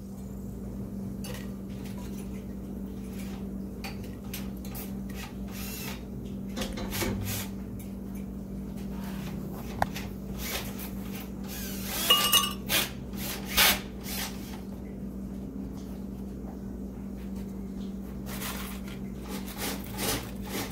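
Metal utensil scraping and knocking against a frying pan as fried chiles are lifted out of the oil, with a few louder ringing clinks about twelve to fourteen seconds in. A steady low hum runs underneath.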